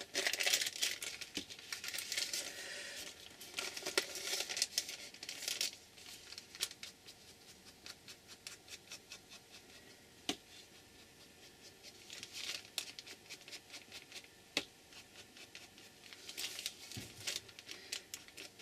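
Paper rustling and being rubbed in scratchy stretches, with scattered light taps and clicks between them.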